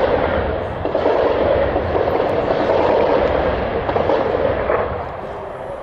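Artillery fire: a loud, continuous rolling roar and rumble that sets in suddenly and dies away after about five seconds.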